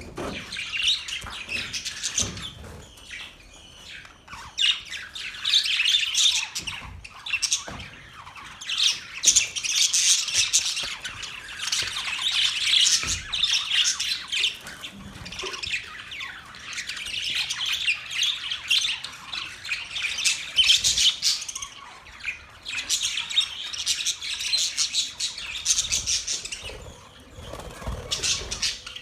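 Budgerigars chattering: a continuous, busy stream of high chirps, warbles and squawks, with brief lulls.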